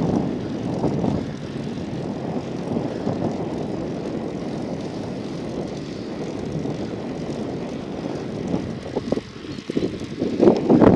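Wind buffeting the microphone over the running noise of a vehicle on the move, a rough, unpitched rushing that grows louder and gustier near the end.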